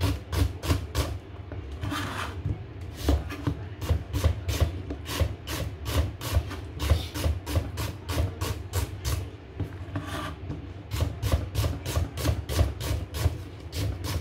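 Chef's knife slicing a red onion on a cutting board: quick, even chops about three a second, each blade stroke knocking on the board, with two brief breaks where the slices are scraped together, about two seconds and ten seconds in.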